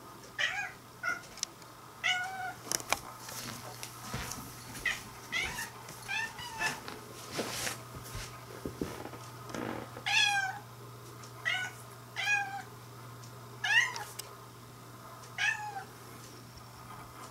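Orange-and-white house cat meowing over and over in short cries, each bending up and down in pitch, more than a dozen with brief pauses between. It is crying out in frustration at a moth flying out of its reach.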